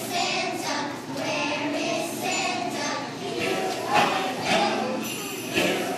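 A group of young children singing a Christmas song together.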